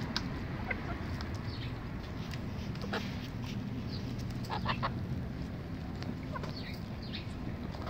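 A flock of young chickens clucking softly in short, scattered calls as they eat from a shared bowl. Quick taps of beaks pecking at the food run through it, over a steady low background rumble.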